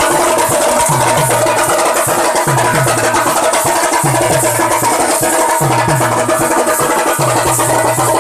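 Khalu baja folk band playing loud dance music: a driving rhythm of sharp drum strokes, with deep strokes that drop in pitch and a melody instrument holding steady notes over them.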